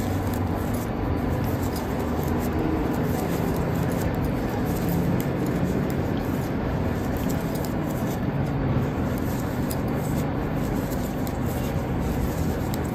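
Steady background rumble and hiss with no clear events, holding an even level throughout.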